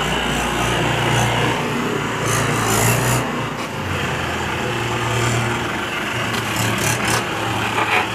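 Mahindra diesel tractor engines running under load while one tractor tows the other by rope, with a steady rough scraping from the mud-caked rear tyre grinding over the ground.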